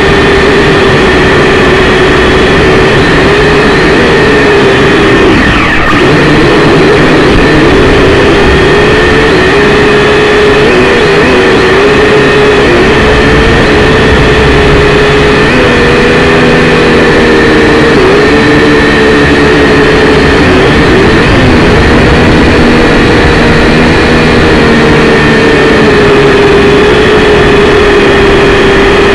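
Syma X5C quadcopter's small brushed motors and propellers buzzing loudly in flight, the pitch wavering up and down as the throttle changes, with a brief dip about six seconds in.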